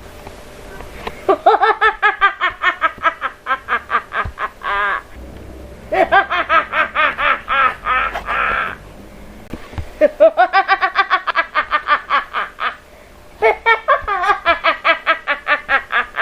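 A woman's manic villain cackle: four bouts of rapid, evenly pulsed 'ha-ha-ha' laughter, each lasting about three seconds and separated by pauses of about a second.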